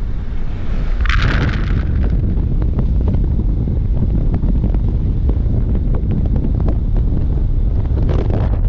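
Wind rushing over the microphone from a Lexus RX400h driving fast across the wet salt flat, over heavy tyre rumble and a steady crackle of wet salt thrown up against the car. Two louder hissing rushes come about a second in and near the end.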